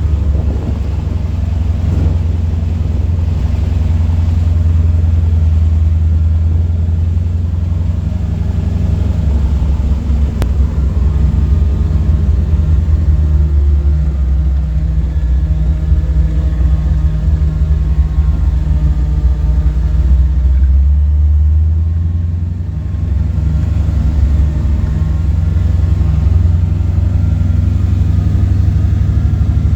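A Jeep's engine running steadily as it drives down a rough road, with the constant buzzing of its heater fan motor over it. The engine sound dips briefly a little over two-thirds of the way through.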